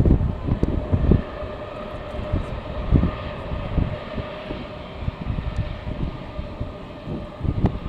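Jet airliner engines running with a steady whine, while strong gusts of wind buffet the microphone in repeated low rumbles.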